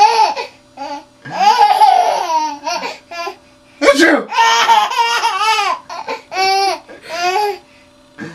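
Baby laughing in repeated high-pitched bursts of giggles, set off by sneezing. A short, sharp burst about four seconds in is followed by more laughter.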